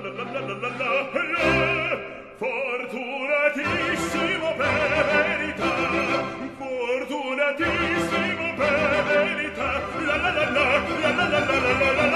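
Background music: a classical operatic voice singing with wide vibrato over an orchestral accompaniment.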